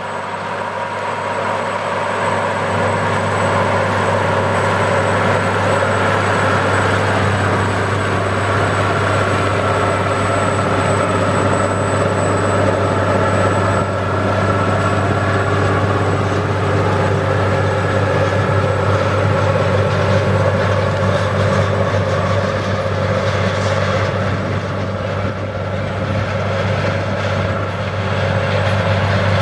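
Challenger MT955B four-wheel-drive tractor's 460-horsepower diesel engine working steadily under load as it pulls a Sunflower disc chisel disc through corn stalks, a constant low hum that swells in over the first couple of seconds.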